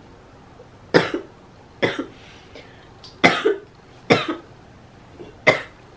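A woman coughing five times, roughly a second apart, after taking a hit from a glass bong.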